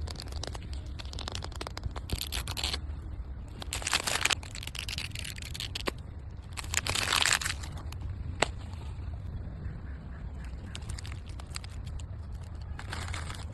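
Plastic toy packaging crinkling and tearing as a Mini Brands capsule is unwrapped, in several rustling bursts with a sharp click about eight seconds in.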